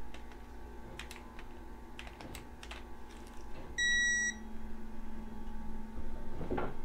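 Scattered ratchet clicks from a wrench turning an ARP connecting-rod bolt a quarter turn past its 20 ft-lb torque. About four seconds in comes a single half-second electronic beep from the digital torque wrench.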